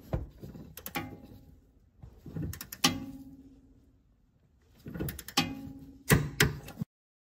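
Irregular metallic clanks and knocks of tools and steel suspension parts, several with a short ringing after them, during fitting of a sway bar end link. Two quick clanks come about five seconds in; the sound then cuts off abruptly.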